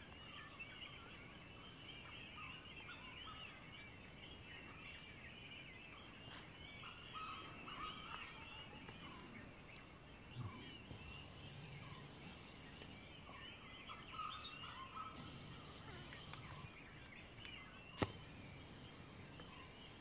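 Dawn chorus of many birds singing and calling over one another in a dense, continuous twitter, faint overall. A single sharp click near the end is the loudest sound.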